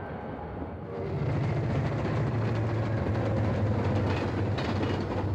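Diesel freight locomotives passing: a steady engine drone over rail and wheel noise. About a second in the sound changes to a deeper, stronger, steady drone as a second train goes by.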